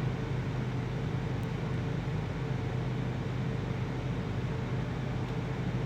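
Steady background hum with an even hiss, unchanging throughout; no distinct events.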